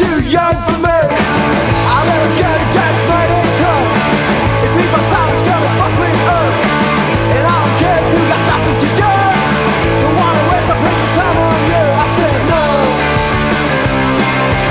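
Garage punk rock record: a full band of electric guitar, bass and drums playing at a driving beat.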